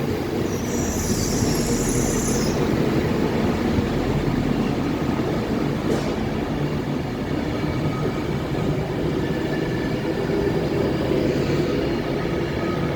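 Class 196 diesel multiple unit running steadily at the platform, its engine giving a continuous rumble, with a brief high hiss about a second in.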